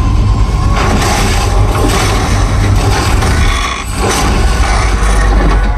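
Loud mechanical noise from a film action scene: a heavy low rumble of machinery with scraping and scattered knocks, and little music.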